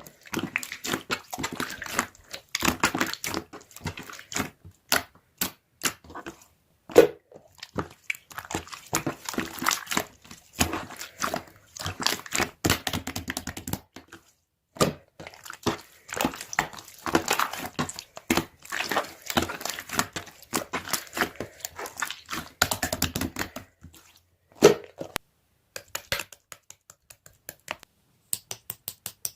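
Slime being squeezed and stretched by hand, making a dense run of sticky crackling pops and clicks. There is a brief pause partway through, and only a few scattered clicks near the end.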